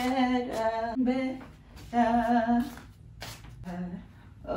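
A woman's voice singing or humming a slow tune without accompaniment, in short held notes with vibrato separated by pauses.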